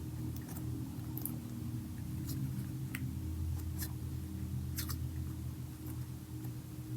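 Hands mixing cloud slime into a base slime, stretching and swirling it: soft squishes with scattered small clicks and pops, over a steady low hum.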